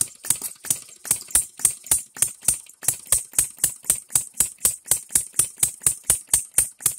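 Small three-stroke (non-compression) model gasoline engine with buzz-coil ignition running steadily on its own, firing with an even, sharp crack about three times a second.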